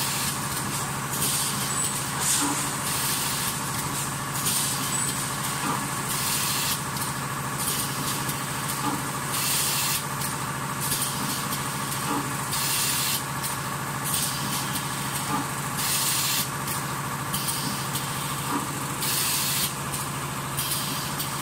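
Automatic leno bag cutting and sewing machine running with a steady drone and light knocks, and short bursts of air hiss every two to three seconds as it cycles.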